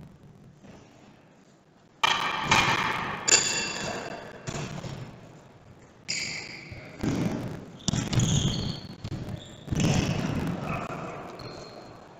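Futsal being played in a reverberant sports hall: the ball thudding as it is kicked and bounces, mixed with players' shouts, starting about two seconds in.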